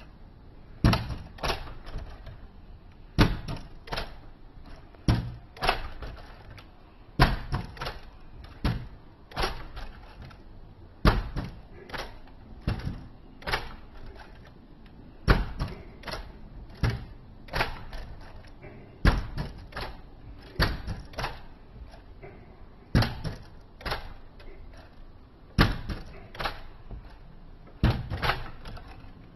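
A 1/25-scale 1975 Cutlass lowrider model hopping: its front end kicks up and drops back onto the table in sharp plastic clacks and knocks, two or three at a time, about every two seconds.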